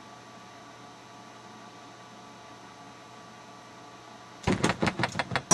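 Steady low electrical hum, then near the end about a second of rapid sharp metallic clicks and rattles as a padlock's shackle is pulled up past two shims and springs open.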